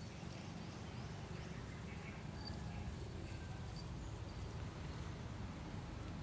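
Puppies faintly squeaking and whimpering, a few short high squeaks scattered over a steady low rumble.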